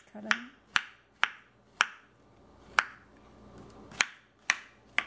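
Kitchen knife slicing a peeled banana on a bamboo cutting board, the blade knocking against the wood at the end of each cut. Eight sharp taps at an uneven pace, with a longer gap in the middle.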